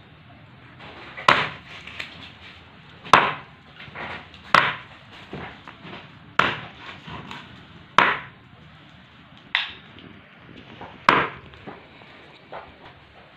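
Large kitchen knife chopping raw chicken on a wooden chopping block: about seven sharp chops roughly a second and a half apart, with softer knocks between them.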